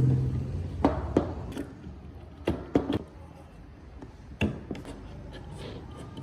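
Pieces of wood being knocked and tapped together while being worked by hand: a string of sharp, irregular knocks. A low hum dies away in the first half second.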